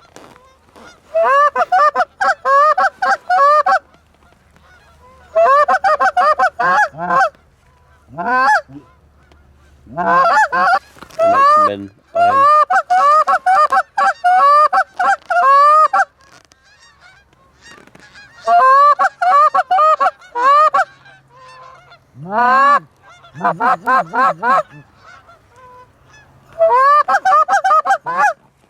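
Canada goose calling: rapid strings of sharp honks and clucks, each note sweeping up in pitch, in about eight loud bursts of two to three seconds with short pauses between.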